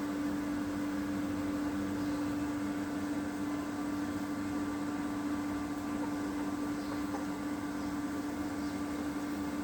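Steady machine hum, like a fan or small motor, with one low steady tone held throughout.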